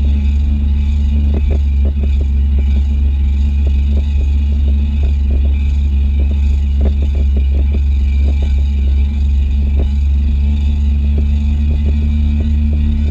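Kawasaki stand-up jet ski engine running steadily at speed, a loud low drone with steady higher tones over it. Many short, irregular knocks run through it as the hull skips over the water.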